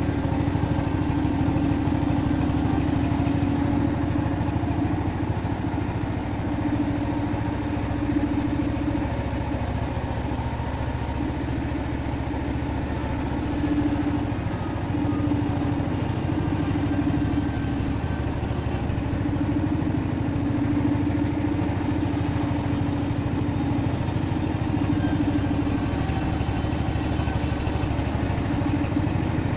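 Homemade bandsaw sawmill running steadily with a continuous engine drone. A humming tone in it swells and fades every few seconds.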